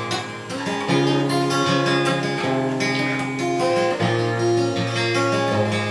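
Acoustic guitar being strummed, playing sustained chords that change about a second in and again about four seconds in.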